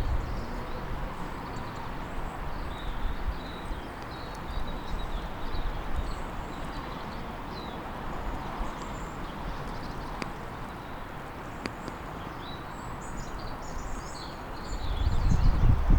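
Outdoor ambience: a steady rush of wind with scattered short, high chirping calls throughout, busiest near the end. Wind gusts buffet the microphone with a low rumble at the start and again in the last second.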